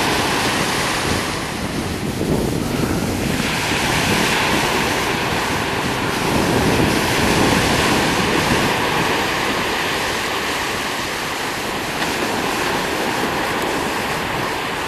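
Sea surf washing ashore with wind gusting over the microphone: a steady, fairly loud rushing noise.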